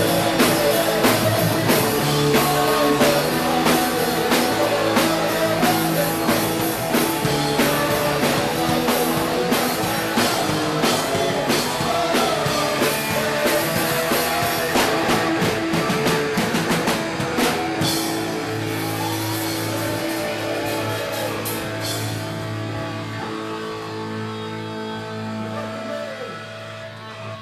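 Punk rock band playing live with electric guitars, bass and a drum kit. About two-thirds of the way through the drumming thins out and held chords ring on, slowly fading toward the end.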